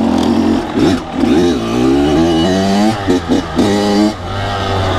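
Kawasaki KX100's single-cylinder two-stroke engine revving up and down as the throttle is worked, with a few quick throttle cuts about three seconds in.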